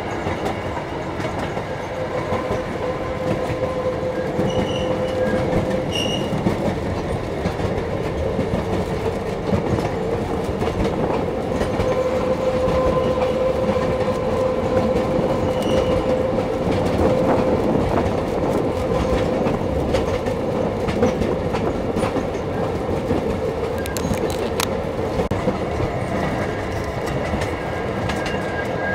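Passenger train running along the track, heard from an open-air excursion car: a steady rumble of wheels on the rails with a faint steady whine underneath and occasional short clicks.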